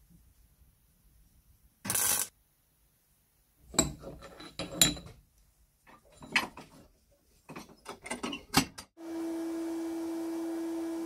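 A small iron lever from a crepe iron is scraped and knocked in a bench vise: several short metallic scrapes and clanks. About nine seconds in, a steady spraying hiss with a whistling tone starts as the part is sprayed from a can.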